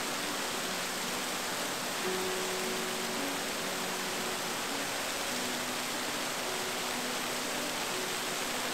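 Soft background music of held, slowly changing notes over a steady, even rushing hiss.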